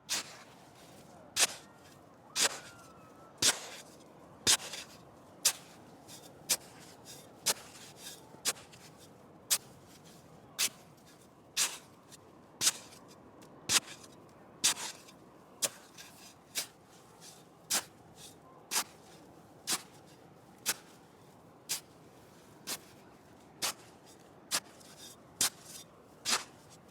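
A shovel digging into sand, biting in with a sharp gritty crunch about once a second in a steady rhythm, over a faint steady hiss.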